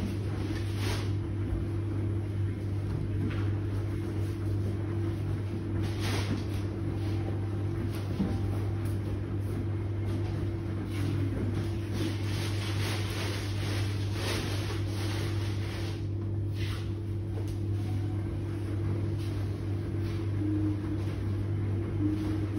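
Electrolux W4250S washer-extractor in its main wash, drum tumbling a wet double duvet: a steady motor hum with a swish of water and laundry every few seconds.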